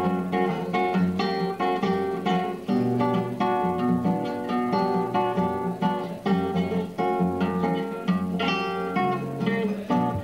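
Acoustic guitar played solo, an instrumental break between sung verses: a steady run of plucked chords and melody notes.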